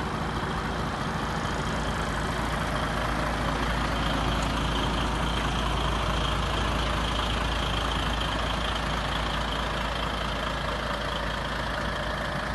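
Heavy truck diesel engine idling steadily, the DAF XF105.510's 12.9-litre PACCAR MX straight-six.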